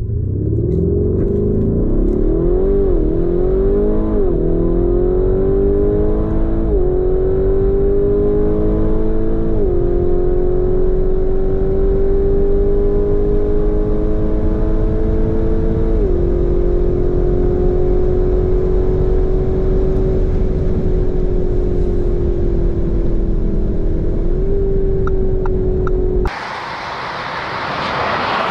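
Tuned 840 hp Lamborghini Urus twin-turbo V8 with a Novitec exhaust accelerating at full throttle from a standstill, heard from inside the cabin: the engine note rises through each gear, broken by six quick upshifts, and each gear lasts longer than the last. Near the end it cuts to a steady roadside rush of motorway traffic.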